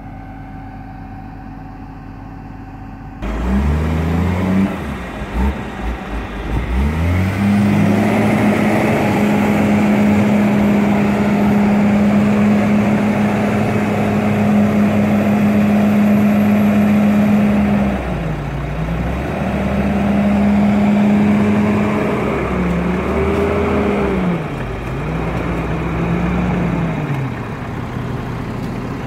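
Case 721F XR wheel loader's diesel engine working. It is low and steady at first, then revs up sharply about three seconds in and holds high revs. From about eighteen seconds the revs drop and climb again several times.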